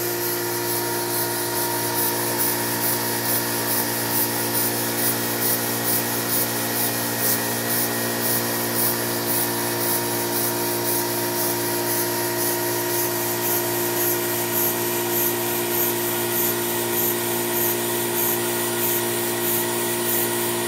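Live-steam model locomotive running with steam hissing and a steady, even chuff of about two to three exhaust beats a second, over a steady hum.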